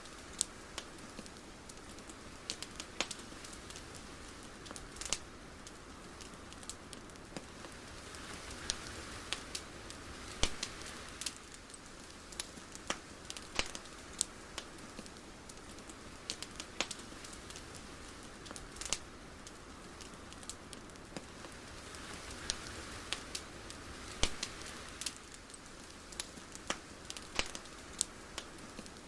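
Irregular sharp crackles and pops, a few each second, over a soft hiss that swells twice, about a third of the way in and again near the end.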